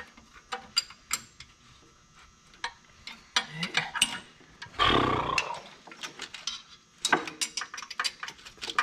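Hand tools working on a diesel engine's turbocharger and exhaust fittings: scattered metal clicks and clinks of wrenches on bolts and parts. A loud rough burst of noise lasts under a second about five seconds in.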